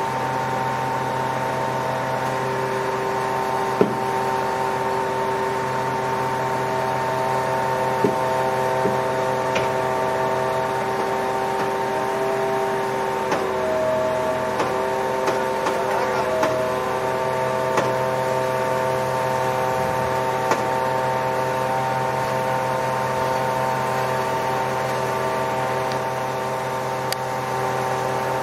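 Truck-mounted hydraulic loader crane working as it lifts a concrete septic tank: the truck engine and hydraulic pump run with a steady whine. The pitch shifts briefly about halfway through, and a few light clicks and knocks sound from the crane and the tank's lifting gear.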